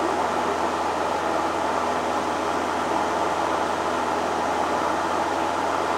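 Steady drone of a light aircraft's engine and propeller with the rush of air, heard inside the cabin in cruising flight.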